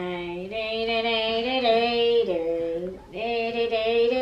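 A woman's voice singing long, drawn-out wordless notes, in three held phrases with short breaths between them.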